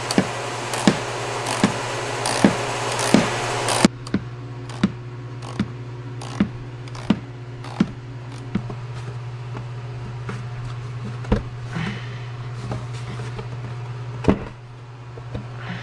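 Ratchet wrench clicking in a steady rhythm, about one stroke every three-quarters of a second, as it loosens the negative battery terminal nut. Later come a couple of single plastic knocks as the engine cover is pulled up off its mounts. A steady low hum runs underneath.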